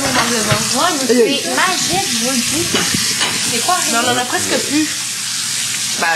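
Food frying and sizzling in a pan on a stove, a steady hiss, with people's voices chattering over it.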